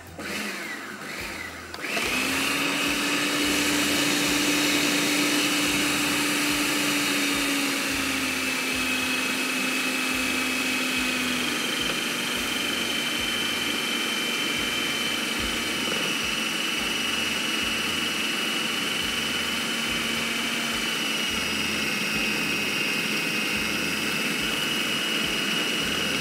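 Electric food processor kneading a flour and gram-flour dough, its motor starting about two seconds in and then running steadily. The motor's pitch drops slightly twice as it runs.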